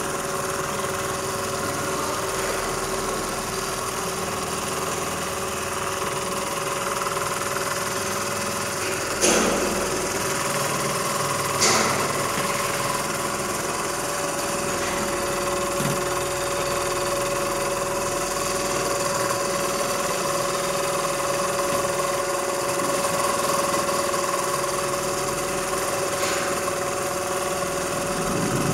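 Richpeace automatic template sewing machine running steadily, stitching while its gantry drives the clamped template, with a steady pitched mechanical hum. Two sharp clicks come about nine and twelve seconds in.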